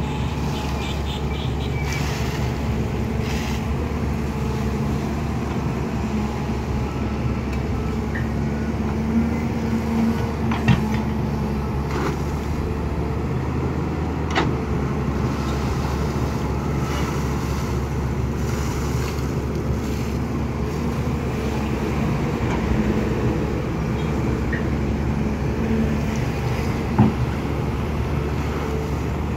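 Caterpillar 320 hydraulic excavator's diesel engine running steadily under load as it digs, with a few short sharp knocks from the bucket and linkage, the loudest about 11 seconds in and near the end.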